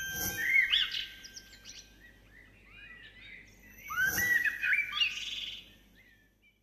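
Small birds chirping in two short bursts, one at the start and another from about four seconds in, each opening with a soft whoosh. A chime's tone rings out under the first burst.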